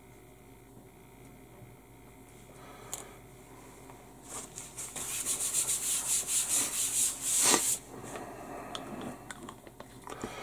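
A paper towel is rubbed in quick back-and-forth strokes against a cutting mat, giving a dry scratchy rustle. It starts about four seconds in, runs for roughly three and a half seconds, is loudest just before it stops, and is followed by a few light handling sounds.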